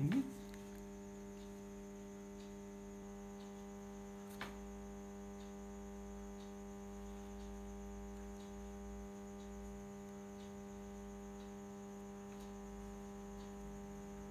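Steady electrical mains hum, with one faint click about four and a half seconds in.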